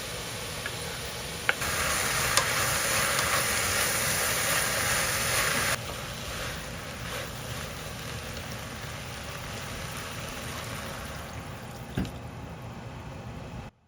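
Food sizzling as it cooks on a hot pan or grill, a steady hiss that grows louder from about a second and a half in to about six seconds, with a few sharp clicks. It cuts off suddenly near the end.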